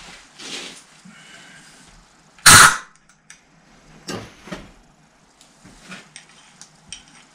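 One short, sharp blast of compressed air from an air blow gun about two and a half seconds in, amid light knocks and clicks of the hose and tools being handled.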